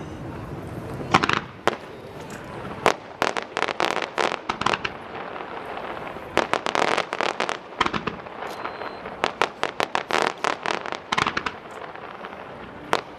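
Fireworks display: rapid volleys of sharp bangs and cracks, starting about a second in and coming in dense clusters, over a steady background rumble.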